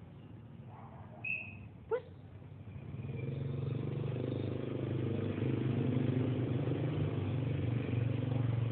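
A motor vehicle's engine running with a steady hum, growing louder from about three seconds in and then holding. A short high squeak and a sharp click come before it.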